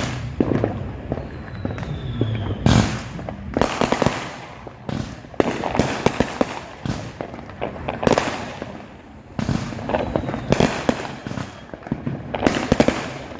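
Neighbourhood consumer fireworks going off: a rapid, irregular series of bangs and crackling bursts, with several louder reports about every second or two.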